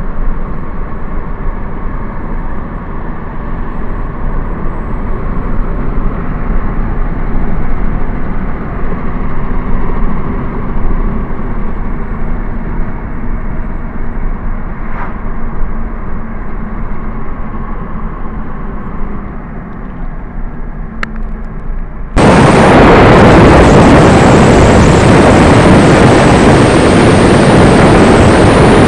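Car driving, recorded through a tiny keychain spy camera's microphone: a steady low road and engine rumble. About two-thirds of the way in it cuts suddenly to a much louder, harsh rushing noise that lasts to the end.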